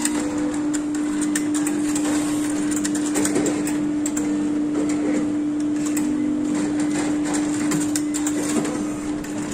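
Roche cobas e 411 immunoassay analyser running a sample run: a steady hum with mechanical whirring and scattered clicks from its motor-driven parts.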